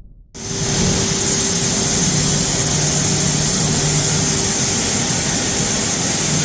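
Chiron FZ12 W vertical machining center running under power: a steady hum with a strong hiss, starting abruptly a third of a second in.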